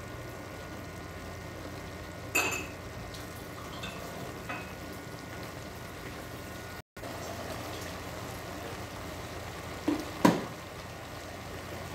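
Beef and fried potato cubes sizzling gently in a stainless steel pot, with a few clinks of a utensil against the pot, the sharpest near the end. The sound drops out for an instant just past halfway.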